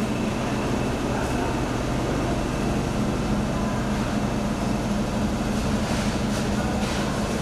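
Steady mechanical hum: a constant low drone with an even rushing noise over it.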